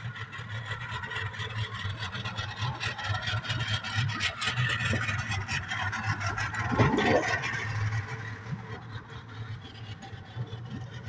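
Small fishing boat's engine idling steadily with a low hum. Rattling and clicking run over it for several seconds mid-way, and a brief wavering cry sounds about seven seconds in.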